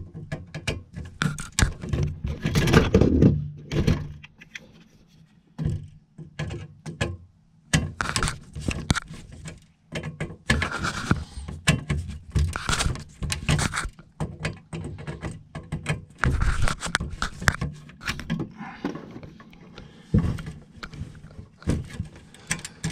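Hands working a furnace control board and its plug-in wiring connectors: an irregular string of plastic clicks, knocks and light scrapes.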